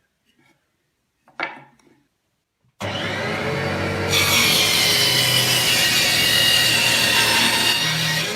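A power saw cutting wood, starting abruptly about three seconds in with a steady, continuous sound that turns brighter and harsher about a second later. Before it there is a single short knock.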